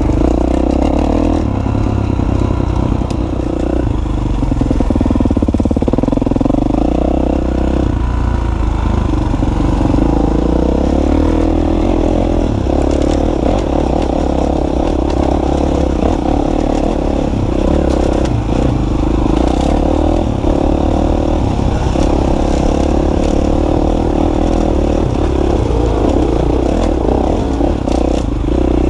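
Dirt bike engine running under the rider as the bike is ridden along a rough trail, its revs rising and falling, with knocks and rattles from the bike over bumps.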